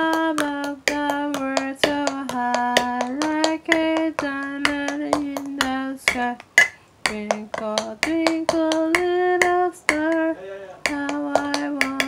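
Quick, uneven hand taps or claps over a simple tune of held notes that steps between a few pitches, each note starting and stopping cleanly.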